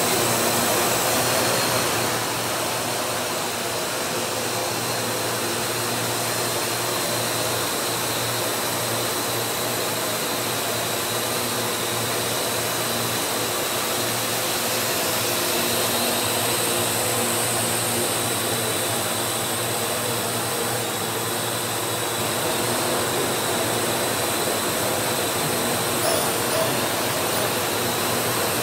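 Parrot AR.Drone quadcopter's four rotors whirring steadily as it flies low indoors, a constant high whine over a low hum.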